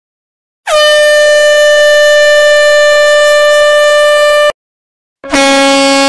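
Horn sound effects played from a phone soundboard app: a loud, steady high-pitched horn blast of nearly four seconds that rises in pitch just at its start and cuts off abruptly. After a short silence, a second, lower-pitched horn begins near the end.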